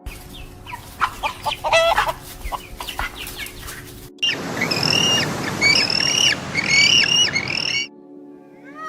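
Poultry calling in two short clips: first a jumble of short clucks and squawks, then, after a sudden cut about four seconds in, a run of about six repeated calls over a noisy barnyard background.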